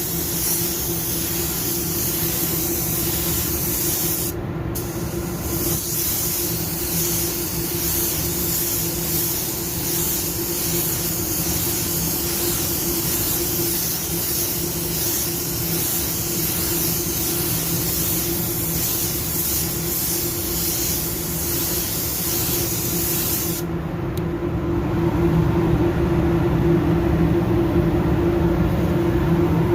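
Automotive paint spray gun hissing with compressed air as it sprays, with a brief break about four seconds in, then stopping a few seconds before the end. A steady low machine hum runs underneath and gets louder once the spraying stops.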